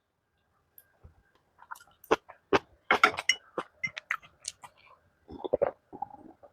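A person chewing a mouthful of food close to the microphone, with irregular wet mouth clicks and smacks.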